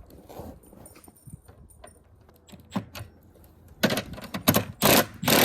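Light metallic clicks of nuts, washers and a socket being handled, then several short bursts of a cordless impact driver near the end, snugging nylock nuts onto 1/4-inch carriage bolts.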